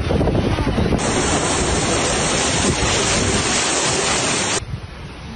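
Strong tornado wind buffeting a phone microphone, then, about a second in, the steady rushing hiss of floodwater pouring down in a heavy stream, which cuts off abruptly near the end, leaving a quieter background.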